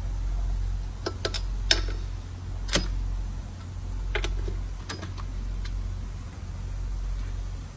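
Hand tools clicking and tapping against metal engine parts while components are screwed back on, a few separate sharp clicks over a steady low hum.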